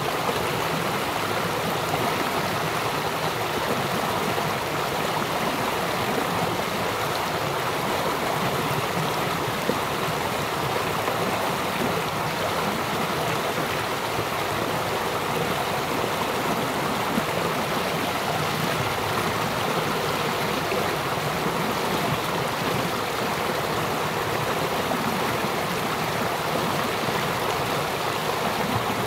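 A small stream flowing, with a steady murmur of running water.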